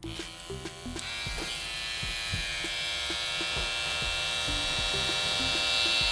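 Wahl cordless Detailer T-blade trimmer switched on and running on its battery, a steady high-pitched buzz that grows slightly louder, with a light click about a second in.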